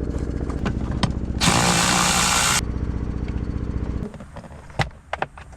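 A hand-held power tool running with a rapid rattling pulse, with a louder hissing surge in the middle. It stops about four seconds in, followed by a few sharp clicks.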